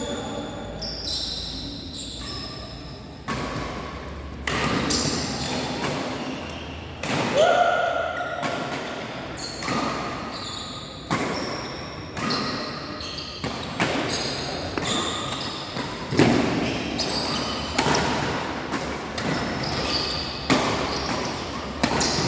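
A badminton rally: rackets smacking the shuttlecock about once a second, each hit echoing in a large sports hall.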